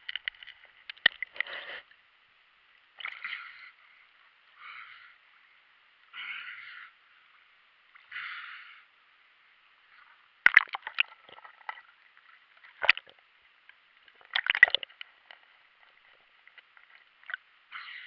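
Water sloshing and splashing, heard muffled through a GoPro's waterproof housing as the camera moves underwater and breaks the surface. There are soft swishes about every second and a half in the first half, then a few sharper splashes and knocks between ten and fifteen seconds in.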